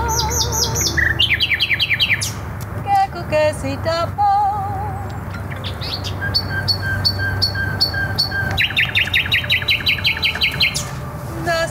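Common nightingale singing in short phrases with gaps between them: fast trills and runs of rapidly repeated notes. Wavering held notes from a musician's voice or instrument come in briefly near the start and about four seconds in.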